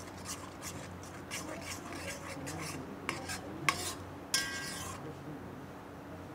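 Metal spoon stirring a thick soup in a stainless steel pot, scraping around the pot with a few sharp ringing clinks against its side, the loudest between three and four and a half seconds in.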